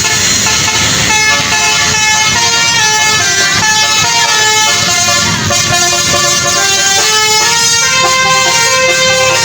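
A tour bus's telolet basuri, a multi-tone musical horn, playing a melody, its notes stepping from pitch to pitch every fraction of a second over a low rumble.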